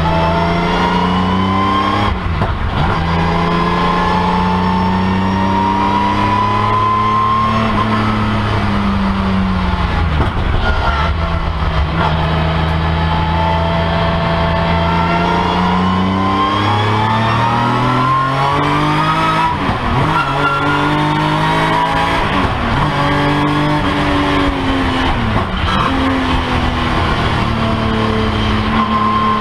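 BMW M3 CSL racecar's straight-six engine heard from inside the stripped cabin, pulling hard through the gears on a track lap. Its pitch climbs steadily, drops at each gear change or lift for a corner, then climbs again.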